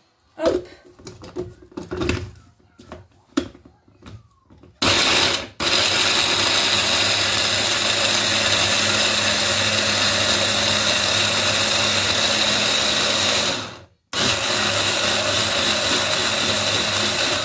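Electric mini chopper grinding chunks of apple with honey and water into a purée. A few handling knocks and clicks as the motor unit is fitted on come first. Then a short burst about five seconds in, a steady run of about eight seconds, a brief stop, and another run of about three seconds.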